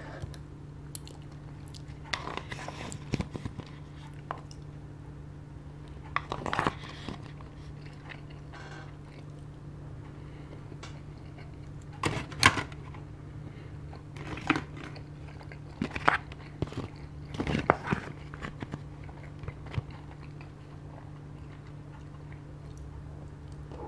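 Close-miked chewing and biting of sashimi and rice, in short spells a few seconds apart, over a steady low hum.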